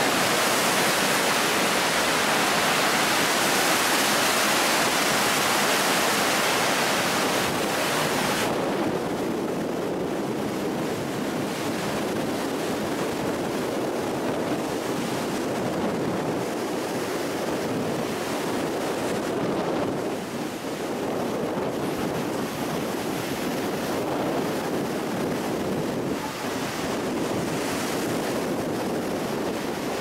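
Surf breaking and washing over a shallow reef shore in strong wind, with a close, bright hiss of foam at first. After several seconds the hiss drops away and wind buffets the microphone over the surge of the waves.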